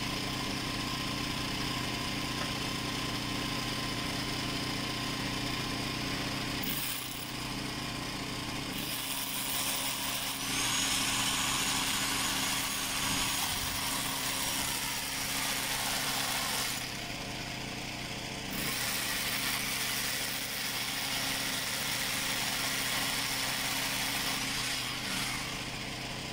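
A small motor runs steadily throughout. A handheld power tool is worked against the concrete wall, from about nine seconds in to near the end, with a short break in the middle.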